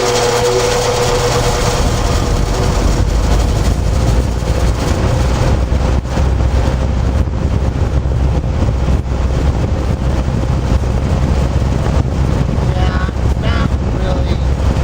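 Vintage Montgomery Ward Tru-Cold four-blade box fan running, heard as a steady, loud rush of air on the microphone, heaviest in the low rumble.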